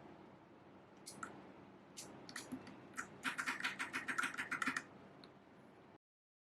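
Mechanical keyboard, an AJAZZ K870T fitted with PBT XDA-profile keycaps, being typed on: a few single keystrokes, then a quick run of about ten keystrokes a second lasting a second and a half, after which the sound cuts off abruptly.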